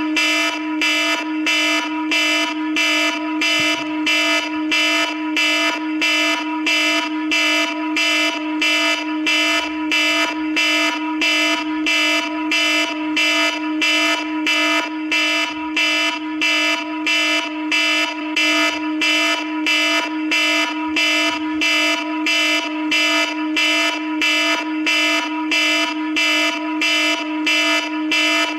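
iPhone alarm ringing: a loud, many-toned electronic alarm pulsing in a fast, even rhythm without pause.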